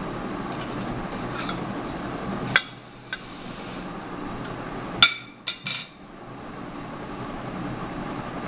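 A glass plate is set down on a tabletop with a sharp clink. A few seconds later comes a quick run of three or four clinks and knocks as a glass bowl with a metal spoon in it is set down on a wooden trivet, all over a steady low background hum.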